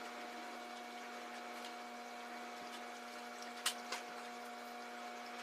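A steady hum made of a few fixed tones over faint hiss, with one sharp click about two-thirds of the way through.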